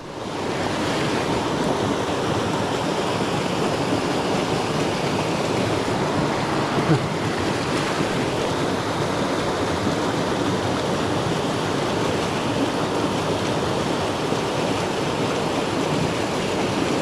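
Rocky mountain trout stream rushing over stones and small cascades close by: a steady wash of water noise, with one brief light knock about seven seconds in.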